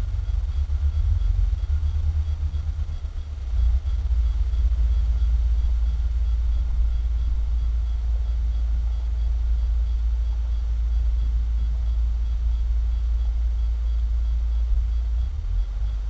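Low, continuous rumble of a heavy machine at work, which briefly eases about three seconds in and then comes back.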